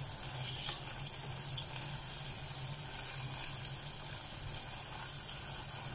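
Longganisa sausages sizzling steadily in their own rendered fat in a small saucepan, fried without any added oil.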